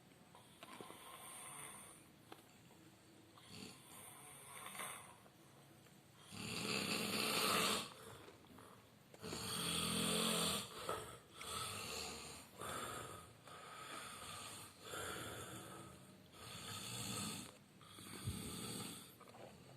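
A sleeping person snoring, one snore every second or two, the loudest about a third of the way in and again about halfway.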